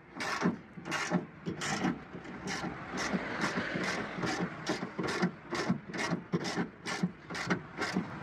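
A small white spitz-type dog panting, quick even breaths about two and a half a second.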